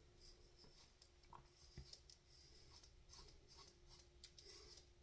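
Faint, dry scraping of a Gillette cartridge razor drawn over a bald scalp without shaving cream, in a series of short strokes.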